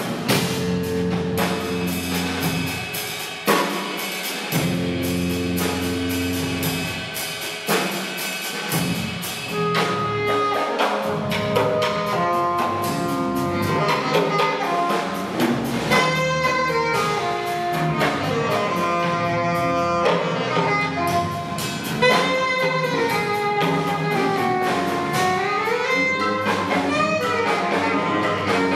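A live jazz-rock band playing. For the first ten seconds or so there are low held notes and percussive clicks. Then a saxophone enters with a melody full of bends and slides over the drums.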